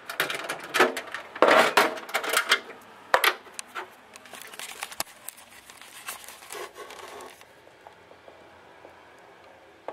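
Hard plastic housing of an EnMotion paper towel dispenser being handled and opened: a quick run of clicks, knocks and rattles over the first three seconds, then lighter clicking and rubbing that dies away about three-quarters of the way through.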